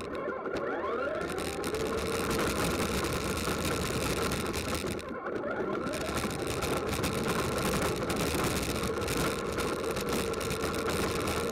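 Small racing engines running with a steady buzz, their pitch rising and falling briefly a couple of times as the cars pass.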